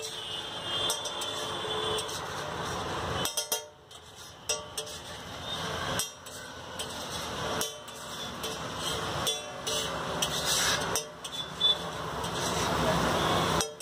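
A long steel knife scraping gravy across a hot iron griddle, with sizzling and a run of short metal scrapes and taps. Street traffic runs underneath.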